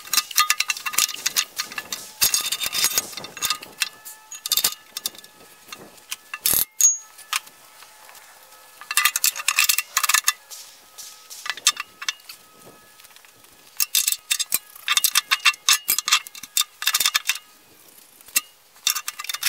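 Steel backhoe thumb parts and clamps clanking, clinking and scraping as the thumb is set against the dipper stick and clamped in place. The clanks come in clusters, about 6 seconds, 10 seconds and 15 to 17 seconds in, with a single sharp knock at about 6.5 seconds and quieter handling between.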